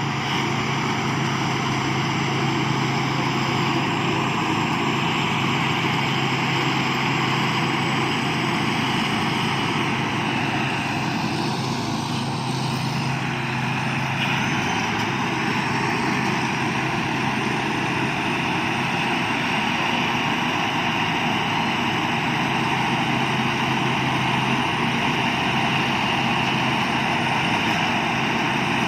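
Thai Seng Yont rice combine harvester running steadily while harvesting, its engine and threshing machinery giving a constant loud hum with a thin high whine over it.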